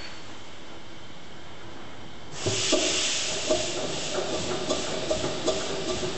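Vertical Tangye steam engine, run on compressed air, starting up as its valve is opened about two seconds in: a loud hiss of air, then a rhythmic beat of the engine's strokes, a little over two a second and quickening. The engine is running for the first time in over 35 years.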